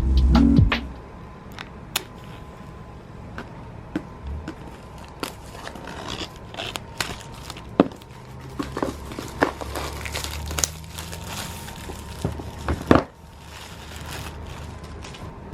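Packaging of a new iPad Pro being handled and opened: scattered crinkling and tearing with small clicks and light knocks, and one louder knock about 13 seconds in.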